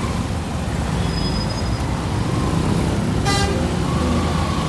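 Motorcycle riding in traffic with a steady low engine and road rumble, and one short vehicle horn toot about three seconds in.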